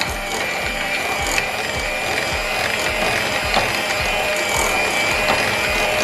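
Electric hand mixer running steadily, its beaters creaming softened butter in a glass bowl until light and fluffy. It gives a constant high motor whine over a regular low pulsing.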